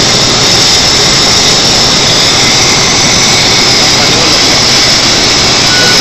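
Loud, steady rushing hiss of a running sugar-refinery vacuum pan station and its process equipment, unchanging throughout.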